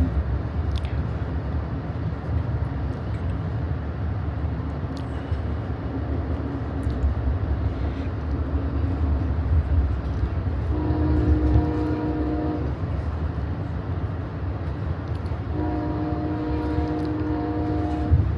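Amtrak passenger train running with a steady low rumble, and the locomotive's multi-tone horn sounding two long blasts, the first just past the middle and the second near the end.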